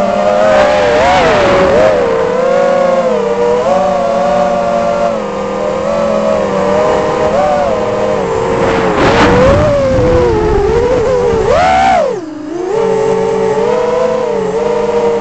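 Brushless motors and 6-inch props of an Armattan Rooster quadcopter, 2300 KV motors, whining in flight, heard from its onboard camera; the pitch rises and falls with throttle and drops sharply about twelve seconds in before climbing back. Rushes of wind noise come in about a second in and again around nine seconds.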